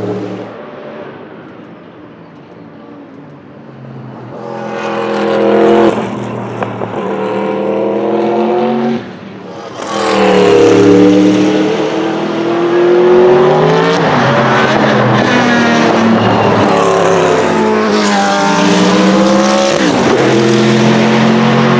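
Sauber-Mercedes C11 Group C prototype's 5.0-litre twin-turbo V8 running at racing speed. The engine note fades away after a pass, builds again as the car comes back into earshot, and dips briefly about nine seconds in. It then stays loud, its pitch climbing and dropping through gear changes.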